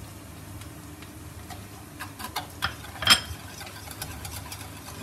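A wire whisk stirring spices into yogurt in a bowl, its wires clicking against the bowl's side in irregular ticks, with one louder clink about three seconds in. A low steady hum sits underneath.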